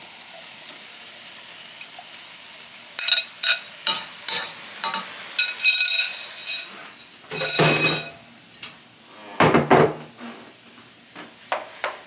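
Scrambled eggs being scraped out of a glass bowl with a plastic slotted spoon into a pot of fried rice, with a run of sharp clinks and scrapes of bowl and spoon against the pot, then two longer, louder scrapes as the mixture is stirred. Faint sizzling of the rice in the pot underneath.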